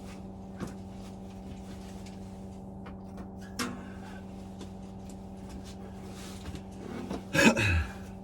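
Metal parts being handled while a boiler's combustion chamber is dismantled: a few light clicks and knocks, then a louder scraping clatter near the end, over a steady low hum.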